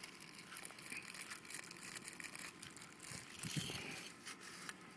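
Faint handling noise: scattered light rustles and small clicks as the redfish is positioned on a measuring board, with a soft low thump about three and a half seconds in.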